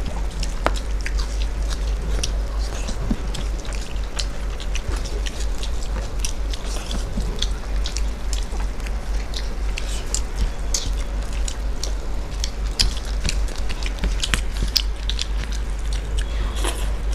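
Close-miked eating: chewing and wet mouth clicks as two people eat rice and chicken curry by hand, with fingers mixing rice on plastic plates. A steady low hum runs underneath.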